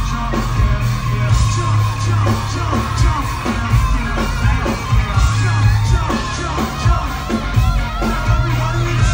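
Live rock band playing loudly with a heavy bass and a steady drum beat, with voices singing and yelling over it. Recorded on a phone from inside the crowd.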